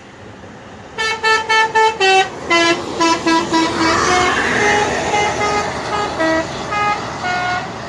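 An intercity bus's telolet air horn playing a fast tune of short tooting notes that jump between pitches, starting about a second in. The bus's engine and road noise swell underneath around the middle as it goes by.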